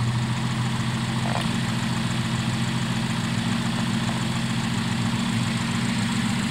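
Car engine idling steadily, heard up close with the bonnet open, while it gets a slight tune: the carburettor's idle jet is being adjusted to get rid of a shake at idle.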